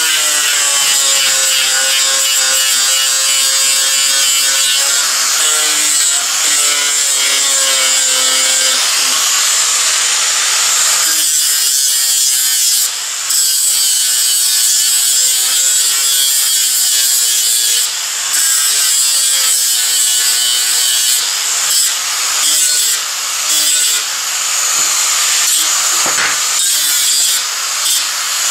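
Electric angle grinder grinding weld remnants off a flat steel bar: a steady high motor whine over a harsh grinding rasp, its pitch wavering as the disc is pressed into the steel, with brief let-ups a few times as the disc comes off the work.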